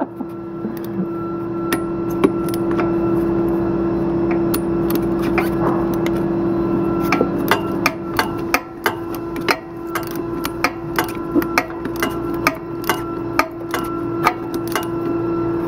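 Hand tools clicking and tapping on metal at irregular intervals, more often in the second half, as a corroded shift bolt is worked loose during a short shifter installation. A steady machine hum runs underneath.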